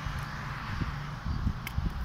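Footsteps of a person walking, a few low thuds in the second half, over a steady low hum and hiss.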